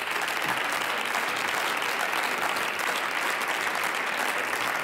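Members of parliament applauding from their benches: many hands clapping at a steady level.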